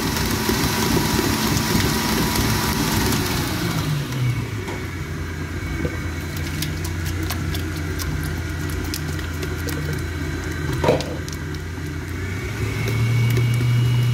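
Planetary stand mixer's motor running with its dough hook kneading a liquid sourdough starter in a steel bowl. Its hum drops in pitch about four seconds in as the speed is lowered, then steps back up and grows louder near the end.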